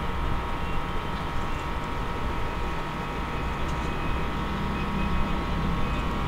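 Steady mechanical drone with a cluster of high whining tones and a low rumble, unchanging throughout.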